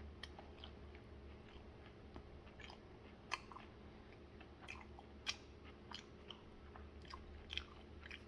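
A person chewing a bite of a McDonald's spicy crispy chicken sandwich: faint, irregular soft crunches and mouth clicks, a few louder ones about a third, two thirds and near the end of the way through.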